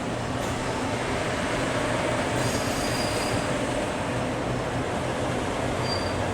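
Diesel locomotive drawing its train slowly into a station platform, engine running with a steady low hum over the rolling noise. Brakes give a short high squeal about two and a half seconds in and a brief one near the end as the train slows.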